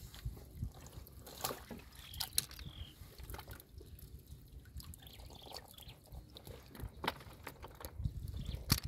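Water dripping and trickling as lotus leaves are handled and lifted out of shallow water by hand, with a few scattered sharp clicks.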